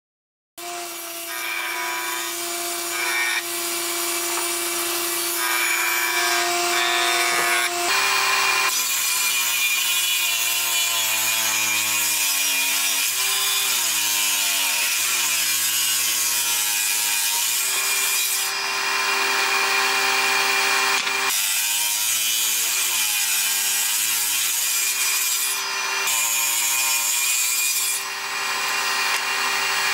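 A table saw ripping thick wooden boards lengthwise, the blade whining and rasping through the wood. The motor's pitch sags under load and recovers several times as boards are fed through.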